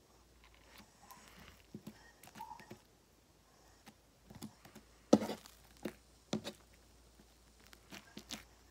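Fluffy slime being pressed, stretched and folded by hand, giving irregular small clicks and pops. The sharpest come in a quick group of three a little past halfway.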